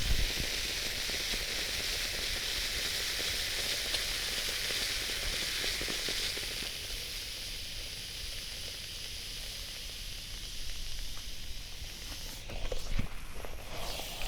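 Steam iron hissing as it puts out steam, steady for about six seconds and then fading away, followed by a few knocks near the end.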